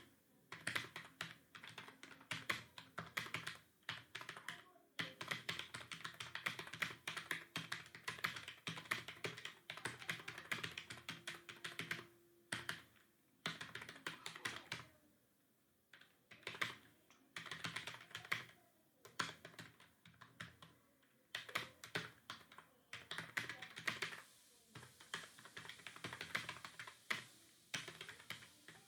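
Computer keyboard typing in fast runs of keystrokes, broken by short pauses every few seconds.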